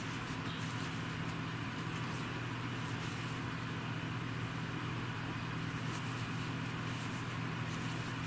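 Steady low hum with an even hiss under it, from an unseen machine or appliance in the room. Faint, brief soft ticks and rustles come from a crochet hook working cotton yarn.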